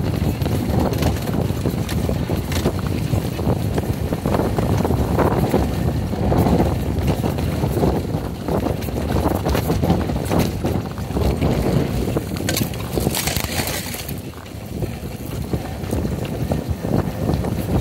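Yamaha XG250 Tricker motorcycle's single-cylinder engine running as it rides a bumpy dirt trail, with wind buffeting the microphone and frequent knocks and rattles from the rough ground.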